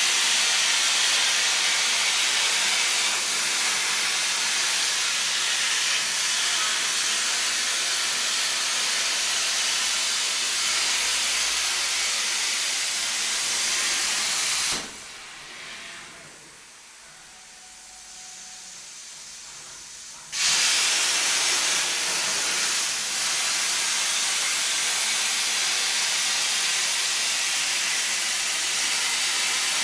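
CNC plasma cutter's torch arc hissing steadily while cutting. It cuts out about halfway through and comes back abruptly about five seconds later, as the arc goes off between cuts and fires again.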